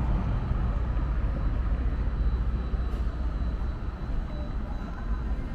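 Low rumble of street traffic as a car drives by on the road, easing off slightly about two thirds of the way through.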